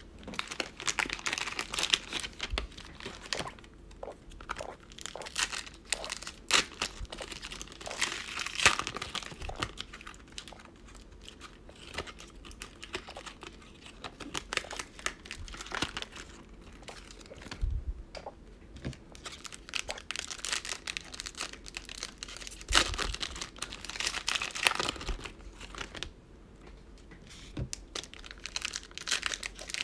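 Plastic Mosaic football card cello-pack wrappers being torn open and crinkled by hand, in bouts of crackling with short pauses between.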